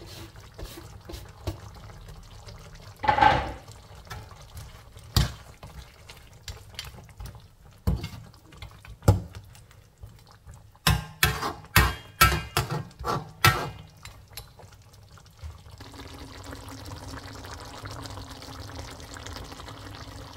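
A slotted metal spatula stirring a thick lamb curry in a wok, knocking and scraping against the pan in scattered clacks, with a quick run of them past the middle. Over the last few seconds the sauce simmers with a steady bubbling.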